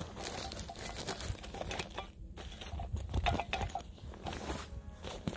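Rustling and crinkling with scattered light clicks as gear is handled.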